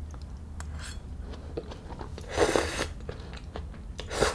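Crisp crunching of roasted spaghetti squash strands: a faint crunch about a second in, a louder one lasting about half a second a little after two seconds in, and a short one near the end.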